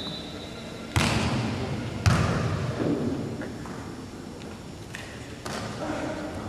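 A volleyball struck by players' hands and arms during a rally: four sharp hits, the first two loudest, each ringing on in the echo of a large indoor hall.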